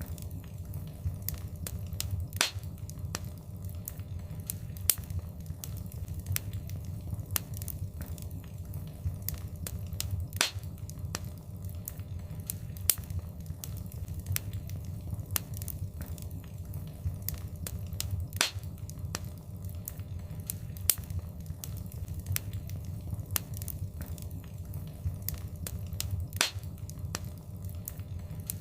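Wood fire burning in a fireplace: a steady low rumble of flames with constant crackling and snapping, and a louder pop about every eight seconds.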